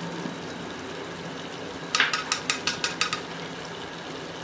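Beef masala frying in a kadai with a steady sizzle. About halfway through comes a quick run of about eight light clacks as a cooking utensil knocks against the pan during stirring.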